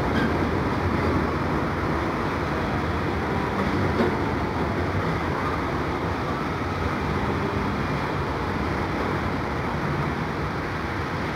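Freight train of autorack cars rolling steadily past, a continuous rumble of wheels on rail, with one brief click about four seconds in.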